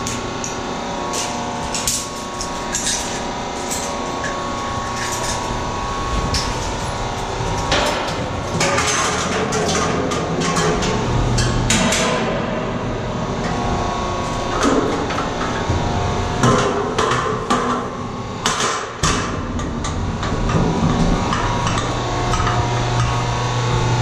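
Irregular metallic clanks and knocks of a climber's gear, gloves and boots on a metal tower ladder, over a steady hum.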